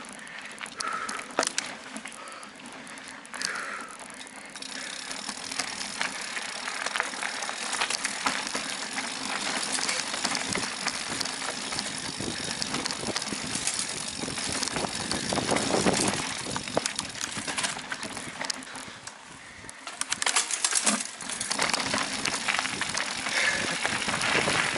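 Mountain bike riding over a forest dirt trail: tyres rolling on dirt and roots with steady noise, and the bike rattling and knocking over bumps. The rattling gets denser after a short quieter moment about three quarters of the way through.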